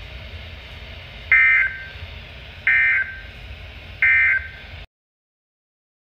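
NOAA weather radio playing the EAS/SAME end-of-message code: three short, harsh digital data bursts about a second and a half apart over steady receiver hiss, signalling that the warning broadcast is over. The sound cuts off abruptly after the third burst.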